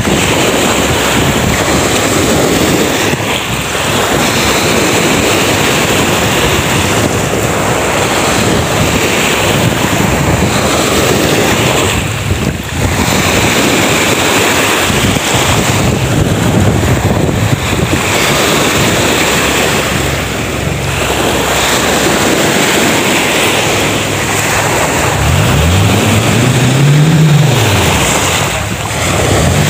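Small waves washing up a sandy shore and swirling around bare feet, with heavy wind noise on the microphone. Near the end a low tone rises and then falls.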